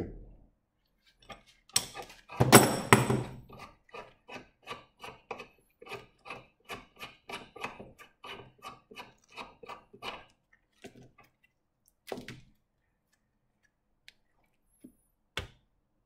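Metal roller chain from a motorcycle drive clattering as it is handled at the vise, after a joint pin has been pressed out with a chain-breaker tool. This is followed by a steady series of light clicks, two or three a second, as the links are moved along one by one, then two single knocks near the end.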